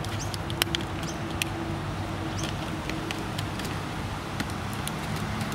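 Steady low background hum with scattered small, sharp clicks and ticks.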